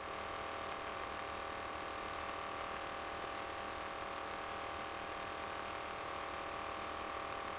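Faint, steady drone of a light aircraft in flight heard through the headset intercom feed: the RV-9A's engine and cockpit noise, with a few steady humming tones over a low hiss.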